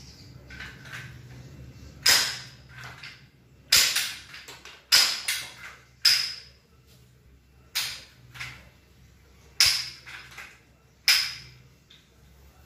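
Wooden lever-action rubber band gun, a Winchester replica, being cocked and fired repeatedly. Seven sharp wooden clacks and snaps come about one to two seconds apart, with softer clicks between them.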